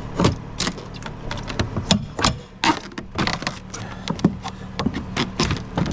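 A plywood crate being pried apart with a flat bar: a run of irregular sharp knocks and wood cracks.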